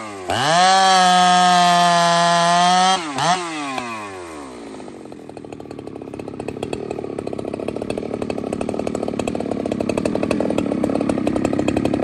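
A 72cc chainsaw fitted with a custom homemade exhaust pipe runs at full throttle at a steady high pitch for about three seconds. The throttle is then released, with one quick blip, and the saw drops to a fast, even idle that grows louder toward the end.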